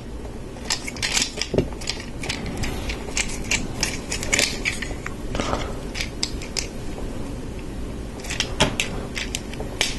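LEGO plastic pieces clicking and snapping together as they are pressed onto a plate and handled, a string of irregular small clicks and rattles.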